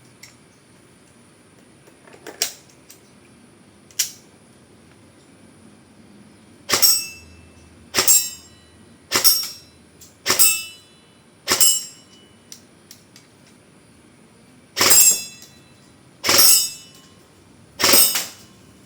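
LCT AKS74N airsoft rifle firing single shots: eight sharp reports, each with a short metallic ring. Five come about a second apart, then three more after a short pause. A few lighter mechanical clicks come before them.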